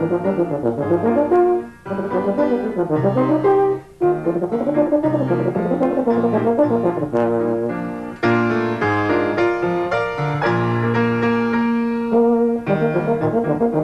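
Euphonium playing a fast brass-band solo passage of quick, separated notes over piano accompaniment, with two short breaks about two and four seconds in.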